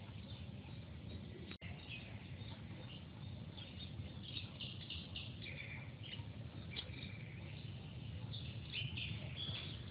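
Small birds chirping in short repeated calls over a steady low rumble of outdoor background noise, with the chirps thicker in the second half.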